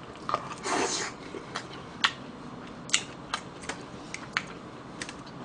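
Close-miked eating sounds: about ten sharp, irregular clicks and smacks from metal chopsticks on a plastic container and from chewing, with a short noisy sound about a second in.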